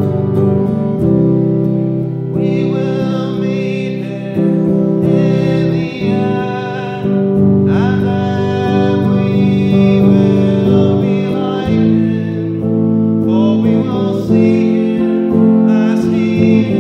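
A man singing a worship song to his own strummed guitar: guitar chords alone at first, then the sung melody comes in about two seconds in and continues in phrases over the chords.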